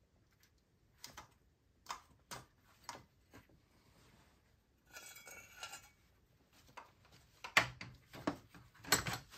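Sharp metallic clinks and knocks from hand tools and the belt tensioner as a serpentine belt is worked off a car engine's pulleys, with a short scraping rattle about five seconds in. The loudest knocks come near the end.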